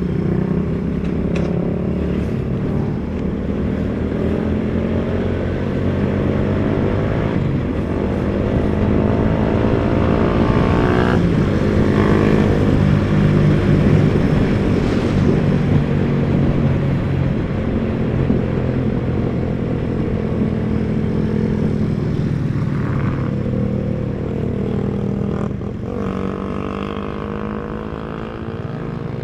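Motorcycle engine running while riding along a road, its pitch rising and falling slowly with speed, over a rumble of wind and road noise.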